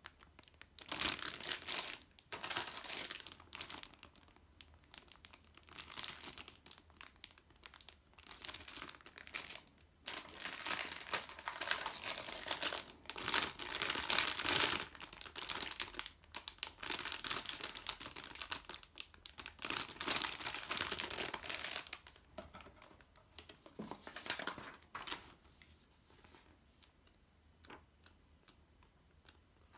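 Clear plastic bags around plastic model-kit runners crinkling in repeated bursts as they are handled, loudest around the middle. Near the end it thins to softer, sparser rustling and ticks as the instruction booklet is handled.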